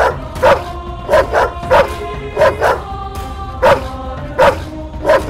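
A dog barking repeatedly in short, sharp barks, singly and in quick pairs, about nine in all, over background music.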